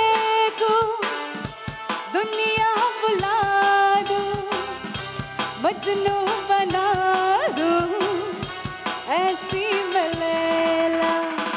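A woman singing a melody with a live band of keyboards, electric guitar and percussion behind her. Her line slides up into notes and holds them long, in an Indian film-song style, with a steady percussion beat underneath.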